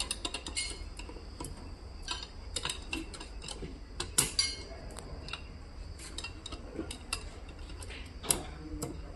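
Irregular light metallic clicks and clinks of metal tools and parts being handled, over a low steady hum.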